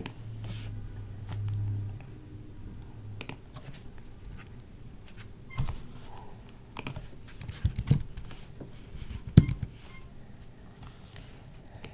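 Typing on a Microsoft Wedge Bluetooth keyboard: scattered, irregular key taps, the loudest about nine seconds in. A low hum runs under the first three seconds.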